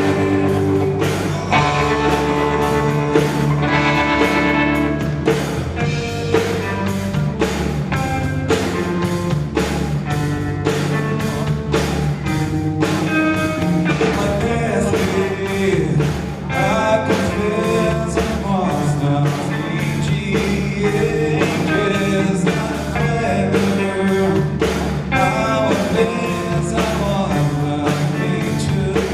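Live rock band playing: electric guitar, bass and drum kit on a steady beat, with a singing voice.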